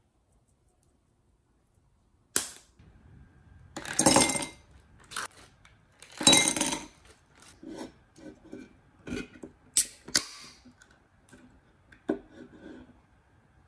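A series of sharp clicks, knocks and clinks, with two louder clattering moments, then an aluminium drink can's pull tab cracking open with a short fizz near the end.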